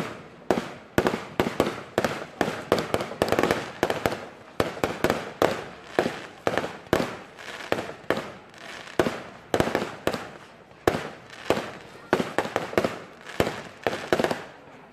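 Fireworks display: aerial shells bursting in a steady run of sharp bangs, about one or two a second, each trailing off briefly.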